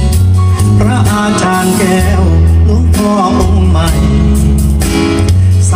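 A song with male singing and a heavy bass line, played through a 4.5-inch Apple speaker driver in a bandpass subwoofer box.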